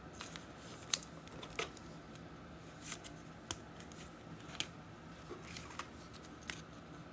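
Trading cards being handled and sorted in the hand: faint, scattered light clicks and flicks of card stock.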